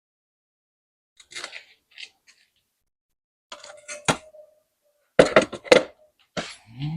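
Metal clinks and knocks as the motorcycle engine is shifted and manoeuvred out of its frame. One sharp strike about four seconds in rings briefly. A cluster of louder knocks follows a second later.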